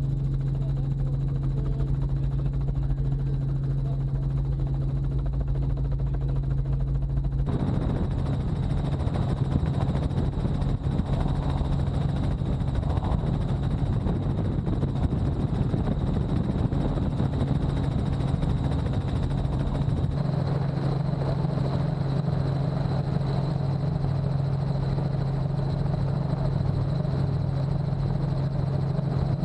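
Helicopter engine and rotor running steadily, heard from inside the cabin as a constant low hum. About seven seconds in, a louder rushing noise joins it and continues.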